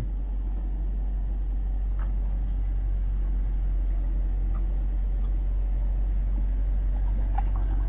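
Car engine idling, a steady low rumble heard from inside the cabin, with a couple of faint clicks about two seconds and four and a half seconds in.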